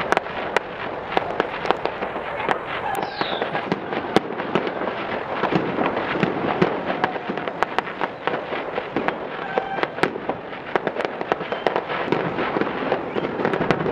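Aerial fireworks bursting in a rapid, dense string of bangs and crackles, several a second, over a steady haze of noise, in a sped-up recording.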